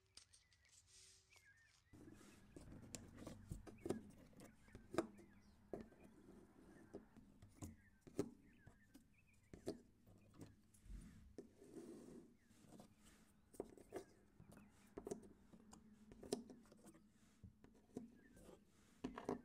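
Faint, scattered clicks and taps of small watercolour half pans being set down and nudged into a row on a tabletop, starting about two seconds in.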